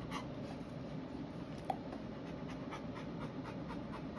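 A tired Rottweiler panting in quick breaths, about four a second; the panting fades for a couple of seconds and picks up again near the end. A single brief clink about halfway.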